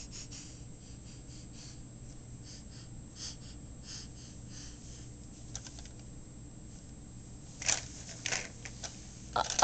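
A baby's breathing and small gasps with soft clicks and rustles, over a low steady hum. Two short, louder breathy sounds come near the end, the second one the loudest.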